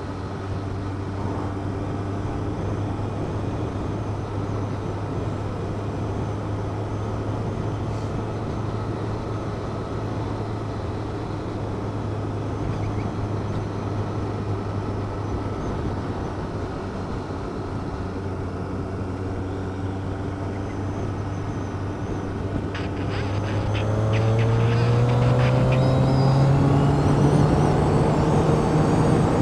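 A vehicle's engine running steadily at cruising speed under wind and road noise, heard from on board. About 23 seconds in, the engine note rises in pitch and grows louder as the vehicle accelerates.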